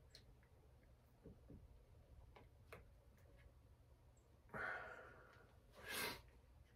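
Near silence with scattered faint clicks of a clutch lever assembly being handled and fitted on a motocross handlebar. A breathy sigh comes about four and a half seconds in, and a sharper, louder breath or rustle about six seconds in.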